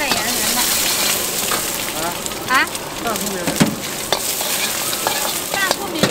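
Fried rice with egg sizzling hard in a hot wok, a steady hiss, while a metal ladle stirs and scrapes it with repeated sharp clinks against the wok.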